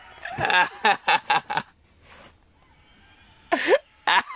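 People giggling in quick bursts of stifled laughter, a pause, then a short high-pitched vocal squeal and more giggling near the end.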